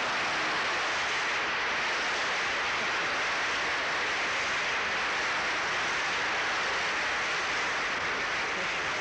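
Studio audience applauding, a dense and steady clapping.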